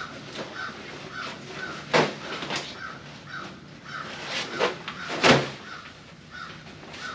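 Plastic tarp rustling and crackling as it is unfolded and lifted up a wall, with a few louder crinkles. Behind it, a short high note repeats steadily about twice a second.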